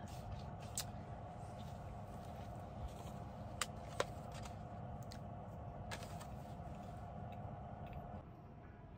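A few light clicks and taps from handling a plastic snack tray, two of them sharper near the middle, over a steady low hum that drops off near the end.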